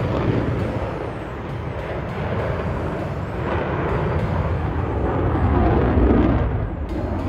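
Jet noise from an F/A-18 Super Hornet's twin turbofan engines as it flies across the sky overhead. It is a steady, rumbling roar that swells about five to six seconds in.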